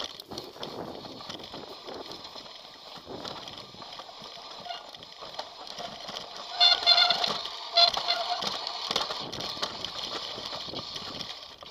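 Mountain bike rattling and rumbling as it descends a dirt forest trail, with wind and tyre noise on the rider's camera. About seven seconds in comes a loud, honking squeal in a few short broken pulses.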